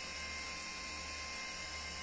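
Steady low electrical hum from the amplifier test bench, with a faint hiss and a faint steady high tone over it.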